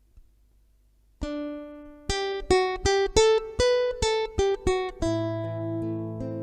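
Guitar intro picked note by note: a single note rings out about a second in, then a quick run of about eight single plucked notes, then a low bass note and a chord left ringing near the end.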